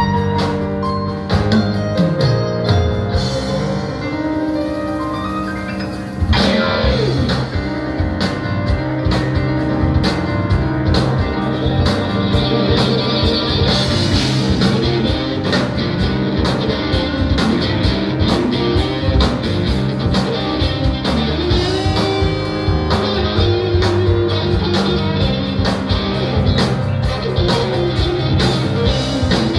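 Live rock band playing electric guitar, keyboard and drum kit. About six seconds in, the music jumps up in loudness as the full band comes in.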